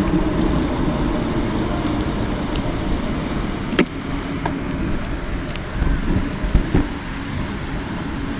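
Steady rushing noise of a bicycle ride picked up by a handlebar-mounted action camera: wind over the microphone and tyres rolling on pavement, with small scattered clicks and one sharp click about four seconds in.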